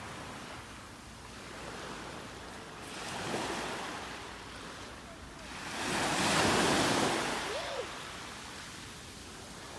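Ocean surf washing on a beach: a steady hiss of water that swells as waves break, once about three seconds in and more loudly just past the middle.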